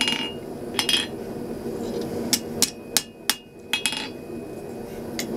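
Hand hammer striking hot steel on an anvil as a flint striker held in tongs is squared up: a run of irregularly spaced blows, about nine, several ringing briefly.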